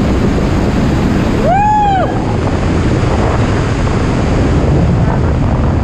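Steady wind rushing over an action camera's microphone while descending under an open parachute canopy. A short high-pitched whoop rises and falls about a second and a half in.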